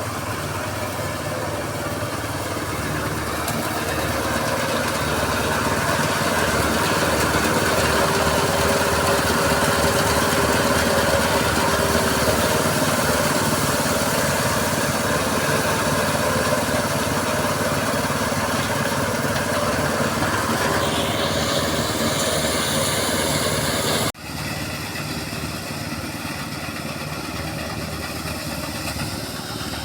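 A small engine running steadily, growing louder over the first several seconds. The sound breaks off abruptly about 24 seconds in and then carries on quieter.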